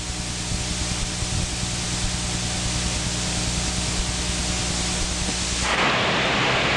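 Motorboat underway: a steady low engine hum under a rushing hiss of wind and water. About six seconds in, the hum drops away and a louder rushing hiss takes over.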